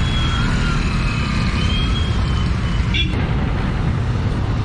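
Steady rumble of road traffic on a busy town street, with a thin wavering high tone through the first two seconds and a single sharp click about three seconds in.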